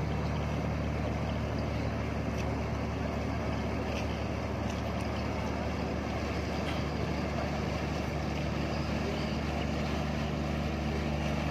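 Roll-on/roll-off car ferry's diesel engines running with a steady low drone as it pulls away from the dock. A low hum in the drone grows a little stronger near the end.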